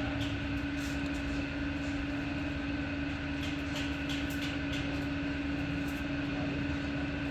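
A motor running steadily at one pitch, with scattered light clicks and rattles.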